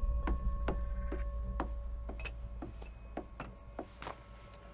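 A run of sharp clicks and clacks from objects handled at a table, two or three a second and growing fainter, with one brighter clink about two seconds in. A faint steady hum runs underneath.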